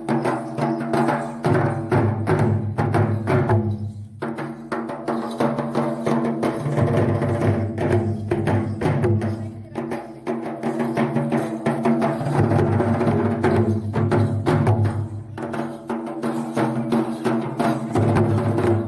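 Music driven by drums: quick, dense drum strokes over steady held tones, thinning briefly about four seconds in.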